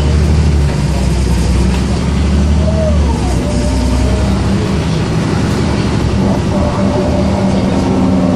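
Mercedes-Benz O405 bus on the move, heard from inside the passenger cabin: a loud, steady low diesel drone, with a whine from the ZF automatic gearbox gliding up and down about three seconds in and rising again near the end.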